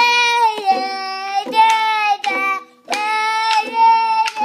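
A toddler singing in long, high held notes, two loud phrases with a short break about two and a half seconds in. A small ukulele is strummed and left ringing beneath the voice.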